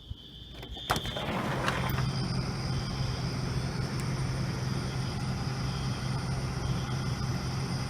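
A click about a second in, then a fire truck's engine running steadily, a low even hum, with a faint high steady tone above it.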